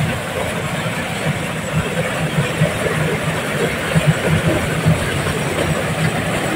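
Diesel-powered mobile corn sheller running under load: the engine and threshing drum make a steady mechanical noise, with an irregular clatter of cobs and kernels going through the machine.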